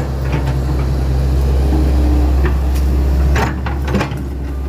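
Hitachi Zaxis 110 excavator engine running steadily, with a thin hydraulic whine coming and going as the arm works. Scattered knocks and creaks of wood come through, the loudest a short burst about three and a half seconds in.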